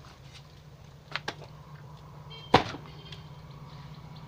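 Sharp knocks from hand-moulding a sand-cement block in a metal hollow-block mould: two quick knocks about a second in and a louder single knock past halfway, over a steady low hum.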